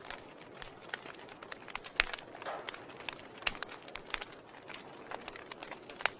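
Wood fire burning in a fireplace: irregular sharp crackles and pops of burning logs over a low hiss, the loudest pop about two seconds in.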